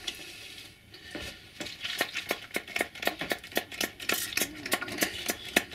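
A fast run of small clicks, taps and rustles, several a second, from hands laying and pressing a ballast or scatter strip over model railway track on a wooden baseboard. They start about a second in.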